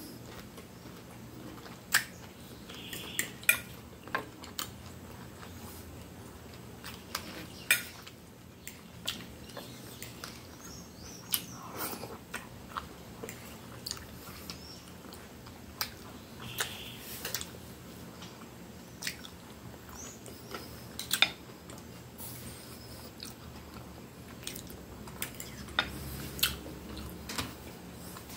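Fork and knife clinking and scraping against a plate in sharp, irregular clicks, with chewing between them.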